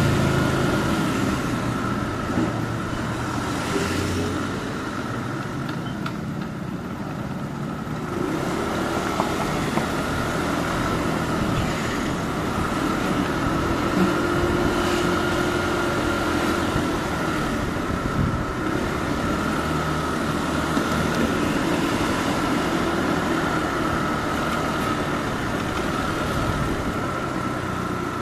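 Motorbike engine running through town traffic, its pitch rising and falling over and over with throttle and gear changes, over steady road and wind noise.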